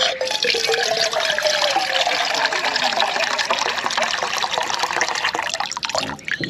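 Water gushing steadily for about six seconds and then stopping, with a faint tone under it that rises briefly and then slowly falls.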